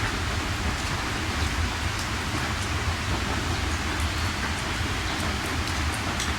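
Steady rain, with a low rumble underneath and scattered sharp drop ticks on top.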